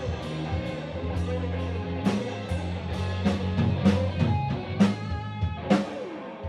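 Live rock band playing: an electric guitar lead over bass guitar and drum kit, with several heavy drum hits in the second half.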